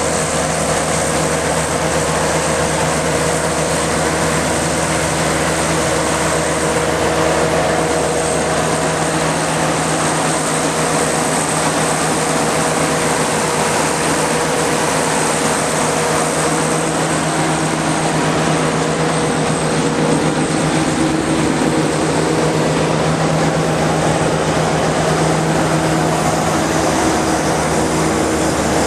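SBS-8 mortar pump and spraying machine running: a steady motor drone with a constant hiss over it.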